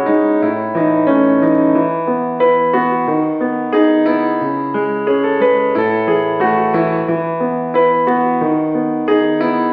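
Background music: a soft piano or electric piano piece with a gentle, even rhythm of notes.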